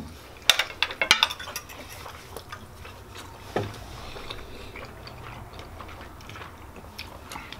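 Metal knife and fork clinking against a dinner plate as steak is cut: a quick run of sharp clinks in the first second or so, then a single knock about three and a half seconds in, over a low steady room hum.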